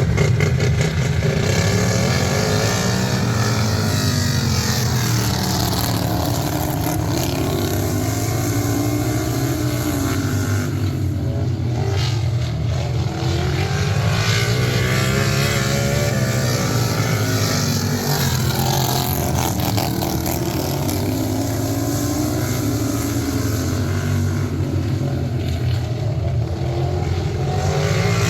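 Racing lawn tractor engines running hard under a steady low drone, their pitch sagging and climbing again every several seconds as the throttle comes off and goes back on.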